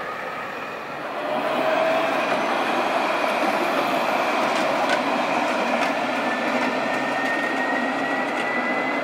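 Alstom Citadis tram running along its track: a steady rolling rumble that grows louder about a second in, with a thin electric motor whine rising slowly in pitch from about six seconds in.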